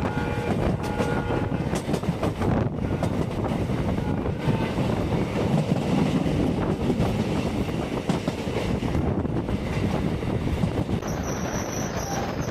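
Passenger train running along the track: steady rumble and clatter of coach wheels on the rails.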